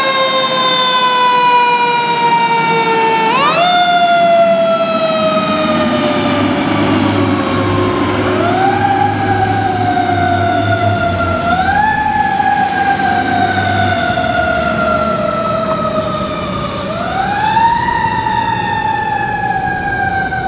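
Fire engine siren on a 2007 Pierce Arrow XT pumper, winding up quickly and then sliding slowly down, started again and again at uneven intervals as the truck drives off.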